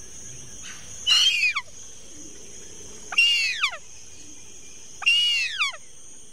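Adult harpy eagle calling: three high calls about two seconds apart, each sliding down in pitch, over a steady high-pitched insect hum.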